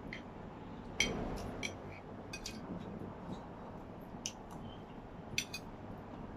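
Spoon and fork clinking and scraping on ceramic plates, with a wooden spatula working rice in a pan: a scatter of short sharp clinks, the loudest about a second in, over a steady low background noise.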